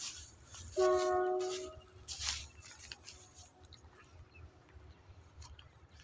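A horn sounds once, a steady chord of several tones held for about a second, followed by a short rushing noise about two seconds in.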